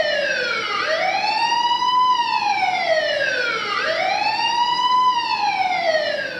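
Ambulance siren wailing, sweeping up and down in pitch twice. Each cycle takes about three seconds, a quick rise followed by a slower fall. It fades out during the last fall.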